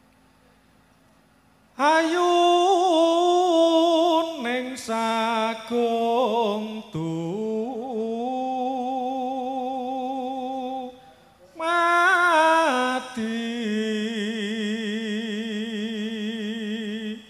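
A man chants a Javanese sung prayer (puji sesanti) solo into a microphone, in long melismatic phrases with held, wavering notes. The chant begins about two seconds in, breaks off briefly past the middle, then goes on with a second long phrase.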